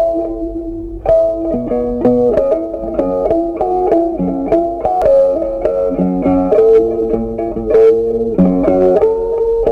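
Background instrumental music: a tune of plucked-string notes picked in quick succession.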